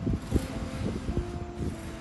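A few dull low thumps over a rumble, with faint held tones of soft background music.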